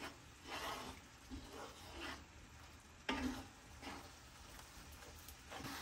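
Wooden spatula stirring and scraping thick sautéed meat and vegetables around a cast-iron skillet in several separate strokes, the strongest about three seconds in, over a faint sizzle from the pan.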